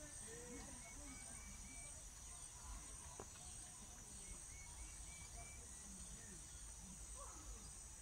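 Faint garden ambience: a steady high-pitched insect chorus, with a short run of quick, evenly spaced chirps heard twice.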